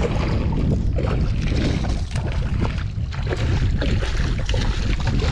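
A hooked largemouth bass splashing and thrashing at the water's surface during the fight, under a heavy rumble of wind buffeting the microphone.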